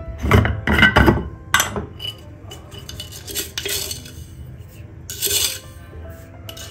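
Clinks and knocks of a glass storage jar being opened and handled, then a spoon scooping white granules from the jar and sprinkling them into a steel plate of milk and eggs, heard as short gritty rustles.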